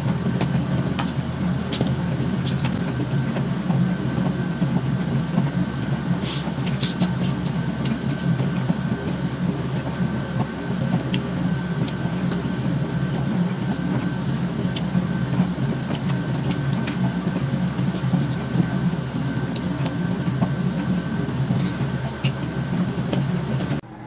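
A steady low mechanical rumble, with small clicks and crunches of eating on top of it, cuts off abruptly near the end.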